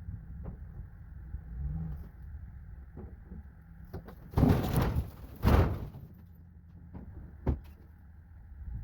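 Steady low vehicle rumble with a few clicks, and two loud rushing noises about four and a half and five and a half seconds in.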